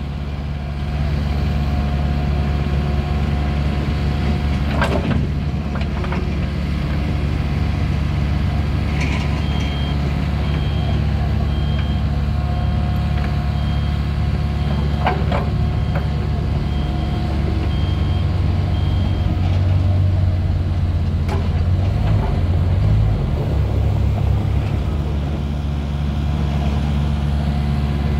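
2017 Takeuchi TB240 mini excavator running, its diesel engine and hydraulics working as the boom and bucket move, with a few clanks. A warning alarm beeps about once a second for several seconds in the middle.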